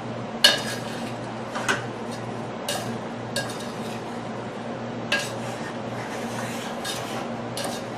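Spoon clinking against a saucepan while cherries and sugar are stirred: several sharp, irregularly spaced clinks, over a faint steady low hum.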